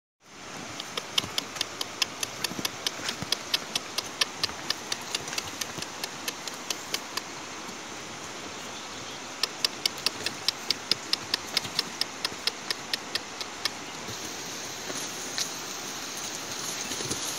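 Outdoor ambience of a steady hiss. A sharp, high ticking call repeats about four times a second in two long runs, stopping for a couple of seconds in the middle.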